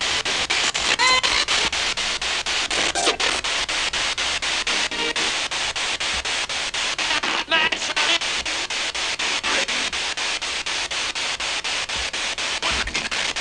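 Spirit box sweeping through radio stations: a steady hiss of static chopped into rapid, evenly spaced pulses, with brief snatches of voice and music breaking through now and then.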